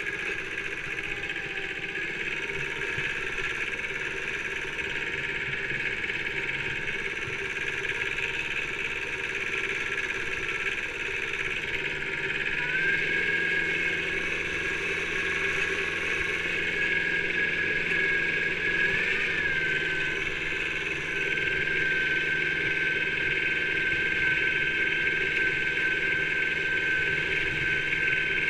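Kubota B7000 compact tractor's two-cylinder diesel engine running steadily under way. The engine speed picks up about twelve seconds in and holds higher, with a brief extra rise a few seconds later.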